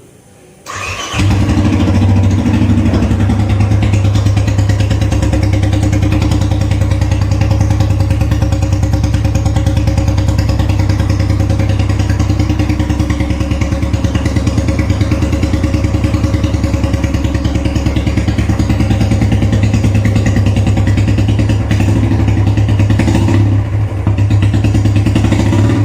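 Royal Enfield Classic 350 single-cylinder engine with a long Punjab aftermarket silencer, started about a second in and then idling steadily with its regular exhaust thump. The exhaust note is off because air is leaking at the loosely tightened joint where the silencer bolts on.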